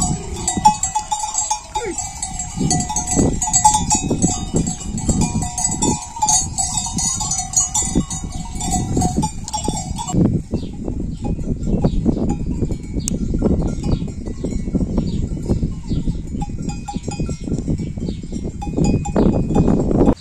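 Bells worn by a large flock of goats and sheep, jingling and clanking busily as the animals move, then thinning out to scattered rings about halfway through. Low thumps and shuffling run underneath throughout.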